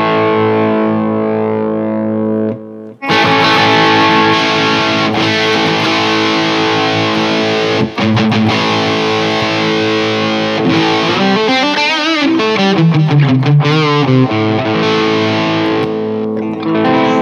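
Schecter Banshee 6 FR electric guitar played through a Hughes & Kettner Tubeman Plus tube preamp and ENGL EL34 power amp, with heavy distortion. A held chord stops short about two and a half seconds in. Sustained notes follow, whose pitch wavers and bends down near the end, then a new chord rings.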